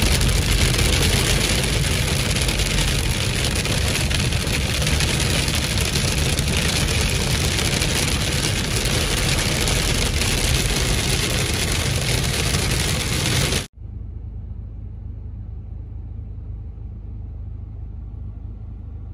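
Hail pelting the roof and windshield of a moving car, a loud steady hiss over the low rumble of the road, which cuts off suddenly about 14 seconds in. A quieter steady low hum of the car cabin with the engine idling follows.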